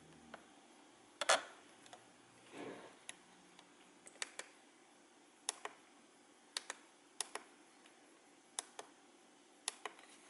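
Small plastic buttons or keys being clicked one at a time, many in quick pairs, with a louder knock about a second in and a short rustle soon after.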